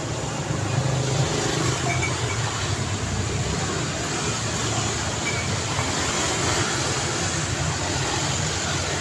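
Steady road traffic: a continuous low rumble of vehicle engines and tyre noise, with no single vehicle standing out.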